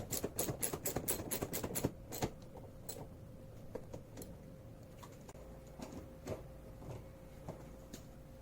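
Socket ratchet clicking rapidly and evenly, about six clicks a second, as a rack mounting bolt is tightened; it stops about two seconds in, followed by a few scattered light clicks of handling the parts.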